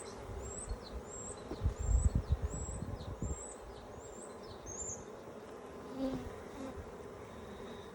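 Honeybees buzzing around an open hive, with a high chirp repeating about seven times through the first five seconds. Low bumps and rumbles come around two to three seconds in.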